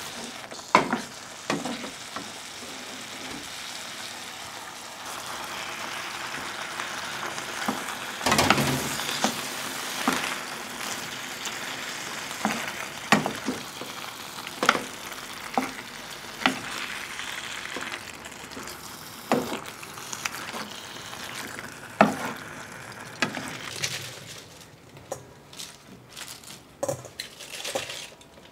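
Curry pasta sauce sizzling in a frying pan, stirred with a wooden spatula that knocks against the pan every second or two. Near the end the sizzling stops, and a few fainter clicks and rustles remain.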